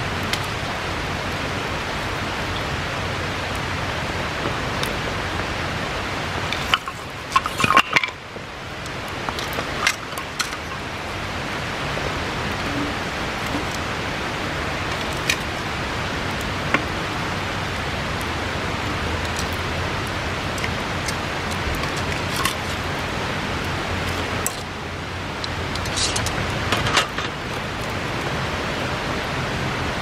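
Steady rushing of a nearby river, with scattered sharp crackles and pops from a wood bonfire. Twice, about seven seconds in and again near twenty-five seconds, the rushing briefly drops while a cluster of louder clicks and knocks sounds.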